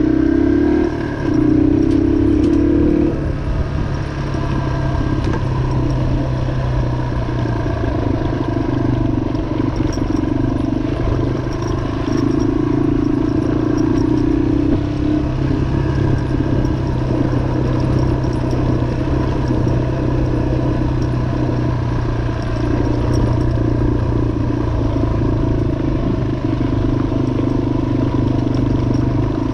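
2003 Yamaha XT225's air-cooled single-cylinder four-stroke engine running as the bike is ridden. Its note drops about three seconds in, then holds fairly steady with small rises and falls.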